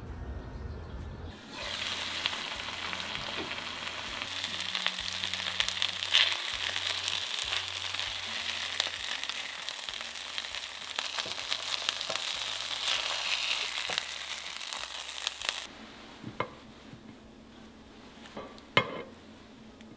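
Chicken breasts frying in a pan, a steady sizzle with dense crackling spatter, turned over with a silicone spatula. The sizzle stops about three-quarters of the way in, followed by a few light clinks of utensils as the food is plated.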